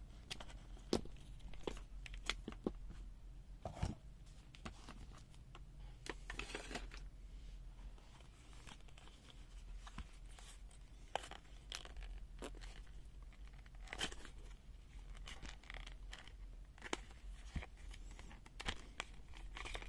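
Soft rubber protective boot being worked off a handheld multimeter's plastic case: scattered light clicks and knocks, with a few longer rubbery rasps of rubber dragging on plastic.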